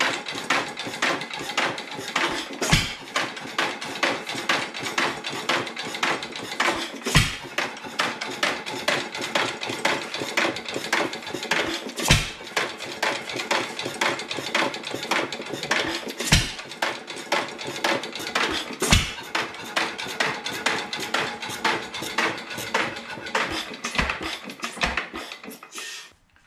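1920s 2-horsepower Headless Witte hit-and-miss engine running warm. Its coasting flywheels carry a rapid, steady mechanical clatter, broken by a heavier firing stroke only once every four to five seconds. The sound cuts off abruptly near the end.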